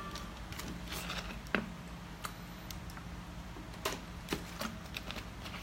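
Scattered light clicks and crackles of a plastic water bottle being handled and drunk from, several close together near the end, over a low steady hum.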